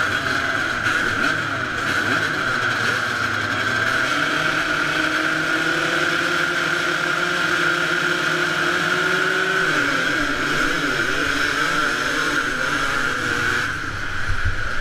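A pack of two-stroke 250 motocross bikes, the nearest a 1989 Honda CR250, revving on the start line; near the end the gate drops and the engines pull away hard.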